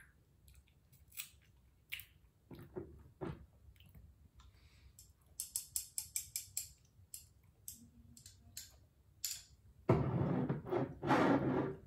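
Mouth and handling noises while tasting hot sauce: scattered small clicks and smacks, then a quick run of about ten sharp clicks as the glass hot-sauce bottle is tipped over a wooden spoon. Two loud, breathy rushes of air near the end, a person blowing out hard after the taste.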